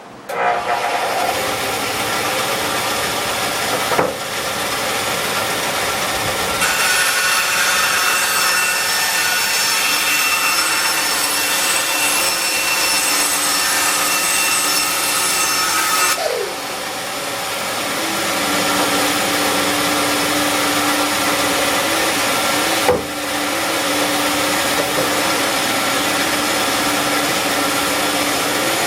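Band saw running and cutting a workpiece: a steady machine whine with the rasp of the blade in the cut, its tone shifting several times as the cut goes on, with a short knock about 4 seconds in and another about 23 seconds in.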